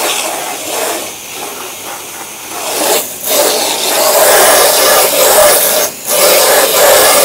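Water spraying hard from a house-washing rinse wand onto siding, a steady hiss. It gets louder about three seconds in and breaks off briefly near six seconds.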